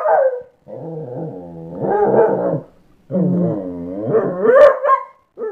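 A dog growling and grumbling back in two long, drawn-out vocal moans, its pitch wavering up and down. It is a jealous dog's grumbling complaint.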